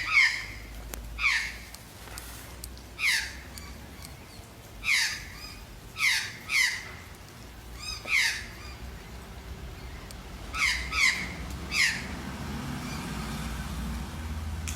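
A bird squawking repeatedly: about ten short, harsh calls, each falling in pitch, some coming in quick pairs.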